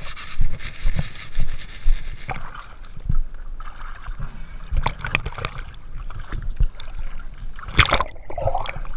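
Irregular knocking and rumbling as a loaded inflatable dinghy is moved over pavement, then water slapping and sloshing at the surface, with a loud sudden splash just before the end.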